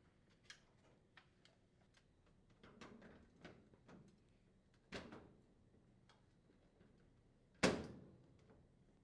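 Handling noise from the laundry center's control panel as it is repositioned on the cabinet: scattered light clicks and rustles, a knock about five seconds in, and a louder knock near the end as the panel seats.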